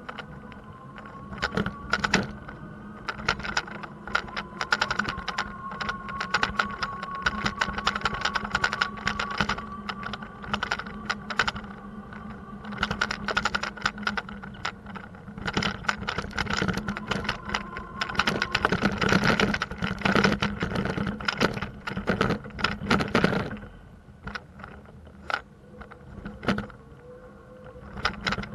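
Rattling and clattering of a bicycle ride over rough pavement, over a steady hum of vehicle traffic; the rattling eases off near the end.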